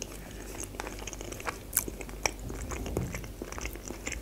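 A person chewing a mouthful of baked mussels close to the microphone: a scatter of small mouth clicks and smacks, several a second.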